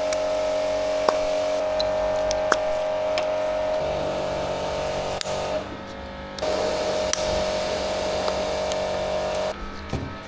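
A small electric power tool's motor whining in runs of a few seconds, stopping and starting abruptly, with a rougher stretch about four seconds in and a few sharp metallic clicks.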